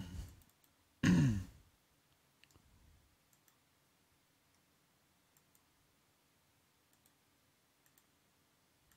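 A short wordless vocal sound, falling in pitch, about a second in, then a few faint computer mouse clicks scattered through the rest.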